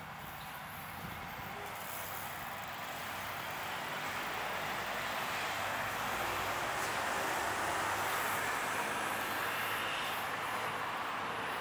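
Urban traffic noise: a steady rushing sound from passing vehicles that swells gradually over the first several seconds and then holds.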